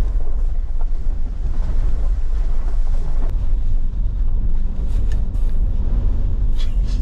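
Mercedes-AMG G63 driving over a rough unsurfaced track in its off-road suspension setting: a loud, steady low rumble of tyres, suspension and engine, with a few faint knocks.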